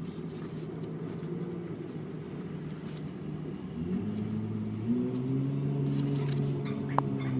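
An engine running steadily with a low hum; its pitch rises about four seconds in, steps up again a second later, then sags slightly near the end.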